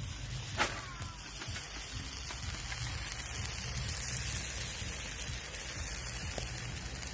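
Skewers of meat sizzling on a grill: a steady crackling hiss, with a low rumble underneath and one sharp click about half a second in.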